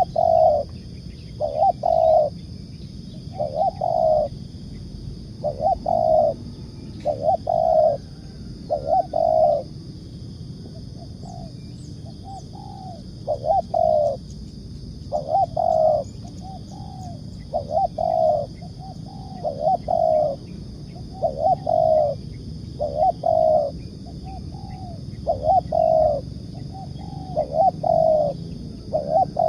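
Spotted dove cooing over and over, a long series of low coos grouped in short phrases, about one coo every second or two, over a steady high-pitched background hum.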